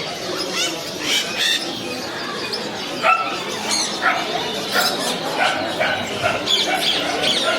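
Many caged birds chirping and squawking at once in a dense, overlapping chorus of short calls.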